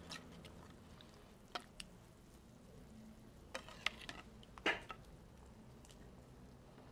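A spoon scooping sardines from a clay bowl and dropping them into a clay pot of boiling tomato broth: a few soft clicks and small splashes, the sharpest about three and a half and four and a half seconds in, over a faint steady hiss.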